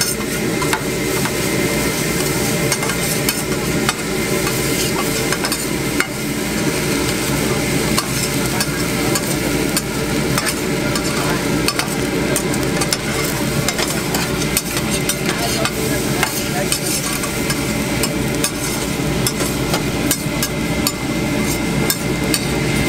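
Egg fried rice sizzling on a flat steel teppanyaki griddle while metal spatulas scrape and clack against the plate, stir-frying and turning the rice. Frequent sharp clicks of the spatulas sound over a steady sizzle.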